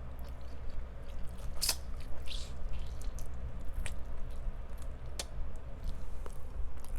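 Close-miked chewing and biting of crispy fried chicken, with scattered short crunches and wet squishy sounds over a steady low hum.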